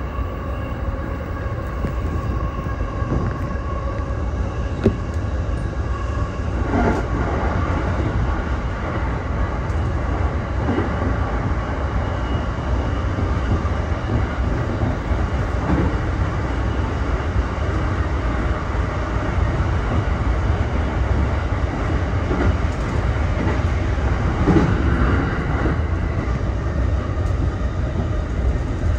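E231 series electric commuter train running along the line, heard from the front car: a steady low rumble with a steady whine and a few knocks of the wheels over the rails.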